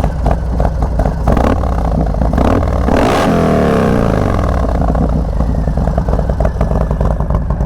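Harley-Davidson Fat Bob's 128-cubic-inch V-twin running. The engine note climbs to a loud peak about three seconds in, then falls away in pitch and settles into a steady run.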